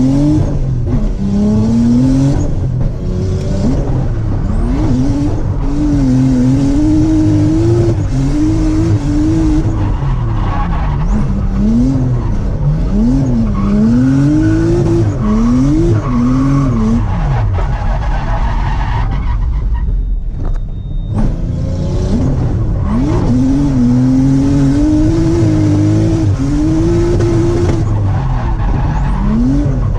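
Nissan Laurel's engine revving hard, its pitch climbing and falling again and again as the car drifts through a long arc, with tyre skid noise. The revs drop away for about a second around two-thirds of the way through, then climb again.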